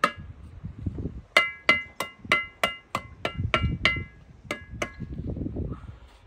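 Steel bricklaying trowel tapping bricks into the mortar: a quick run of about a dozen ringing metallic taps, roughly three a second, with duller knocking and scraping underneath; the taps stop shortly before the end.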